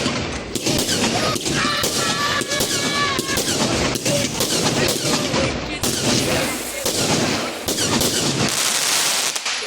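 Consumer firework compound cake firing a rapid, unbroken barrage of shots and crackling reports.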